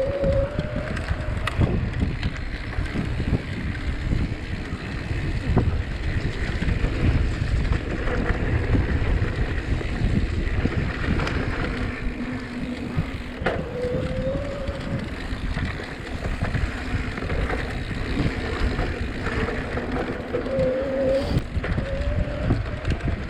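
Mountain bike riding down a rough trail: wind buffeting the microphone over a steady rumble and rattle of the bike, with scattered knocks. Three short, rising squeals sound, near the start, about halfway through, and near the end.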